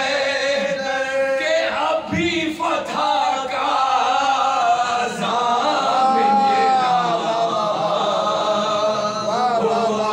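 Soz-khwani: a group of men chanting an Urdu salaam, a lead voice with several others singing along in long, wavering held notes.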